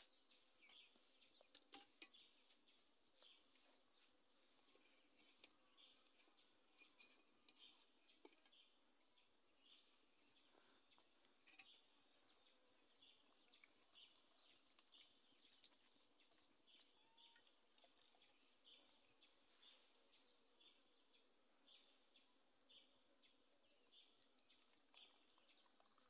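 Near silence: a faint, steady, high insect drone, with a few soft clicks and taps scattered through.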